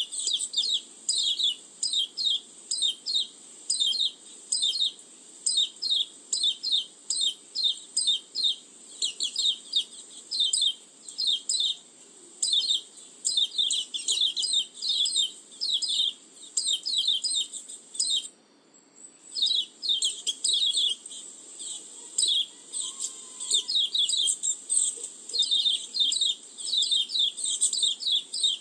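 White-eye (pleci) lure call: a rapid, continuous run of high, sharp chirps, several a second, broken once by a silence of about a second roughly two-thirds of the way through.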